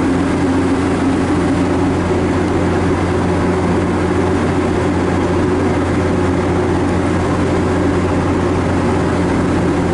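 MARC commuter train standing at the platform, its engine running with a steady low hum.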